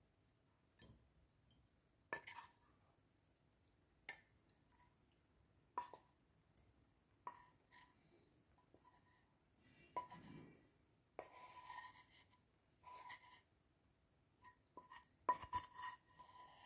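Faint, irregular clinks of a utensil against a glass jar and a ceramic plate as jarred mushrooms are spooned out. Each clink rings briefly, with a few soft scraping sounds in between, and a cluster of clinks comes near the end.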